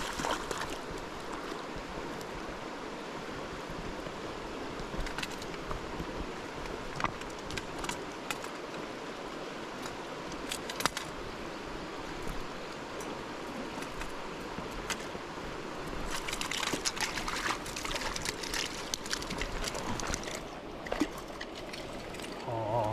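Mountain stream running steadily, with scattered sharp clicks and knocks; the water grows louder and hissier for a few seconds about two-thirds of the way in.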